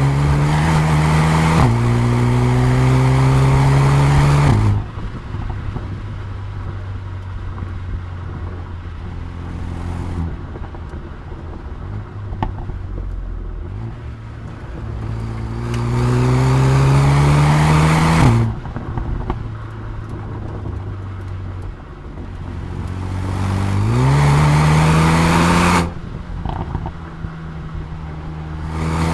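Mercedes-AMG A35's turbocharged 2.0-litre four-cylinder engine pulling hard in three rising runs: one with an upshift about two seconds in, the others starting around the middle and near the end. Each run cuts off suddenly as the throttle is lifted. The engine then drops to a lower, quieter note with exhaust pops and crackles on the overrun.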